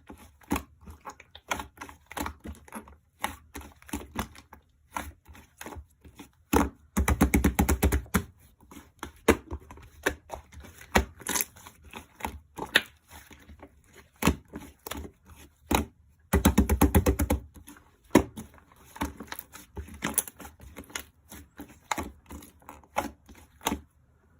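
White slime being squished and poked by hand: irregular sticky clicks and pops, with two stretches of fast, dense clicking about seven seconds in and again around the middle.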